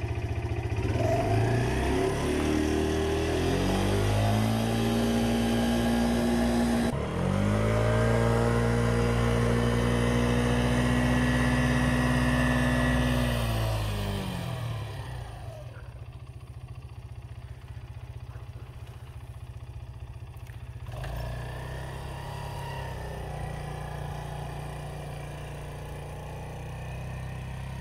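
A motor vehicle's engine accelerating through the gears: the revs climb in steps, dip briefly about seven seconds in, climb again, then ease off at around fourteen seconds. It settles to a lower, quieter steady running.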